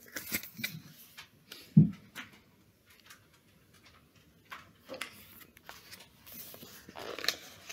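Picture book being handled and its pages turned: scattered paper rustles and soft taps, with one low thump about two seconds in.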